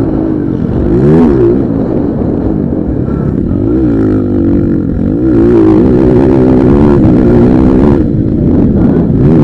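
Motocross motorcycle engines revving, their pitch rising and falling several times as the throttle is worked.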